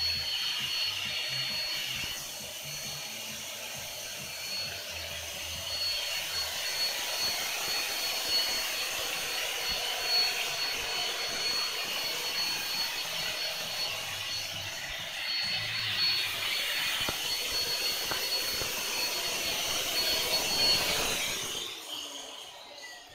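Electric air blower running steadily with a constant high whine, then shutting off near the end, the motor sound dying away.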